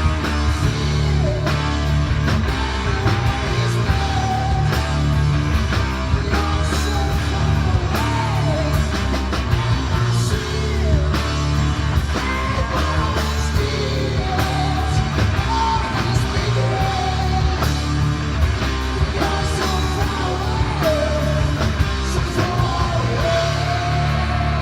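Rock music with guitar, low held bass notes and a singing voice.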